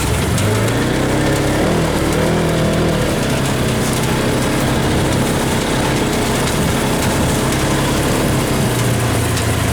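Polaris RZR side-by-side's engine running as it drives along. Its note rises and falls a little in the first few seconds, then holds steady.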